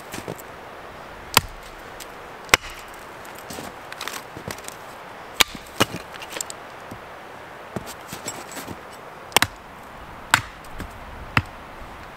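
Small axe splitting a log into kindling on a wooden chopping block: about seven sharp, irregularly spaced chops, with lighter knocks and clatter of split pieces between them.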